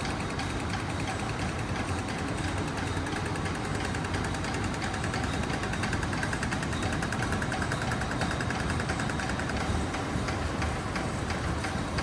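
Vertical enclosed steam engine driving a generator, running with a rapid, steady mechanical beat.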